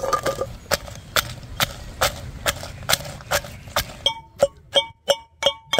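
Pestle pounding peeled garlic cloves in a mortar, about two strikes a second. In the last couple of seconds each strike rings out like a bell.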